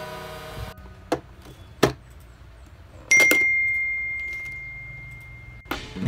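Two sharp clicks, then a louder click followed by a single high ringing chime that fades slowly over about two and a half seconds.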